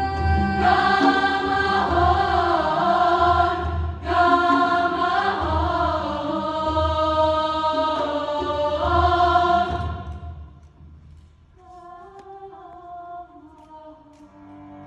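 Women's choir singing loudly in several parts, accompanied by a cello. About ten seconds in the choir fades out and the cello carries on quietly alone.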